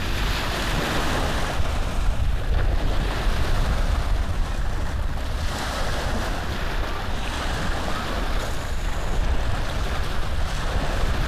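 A steady, loud rushing noise with a heavy low rumble and no distinct strokes or tones.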